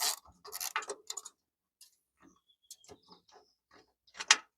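Scattered small clicks and taps of metal parts and tools being handled, busier in the first second and a half, with one sharp, loudest click about four seconds in.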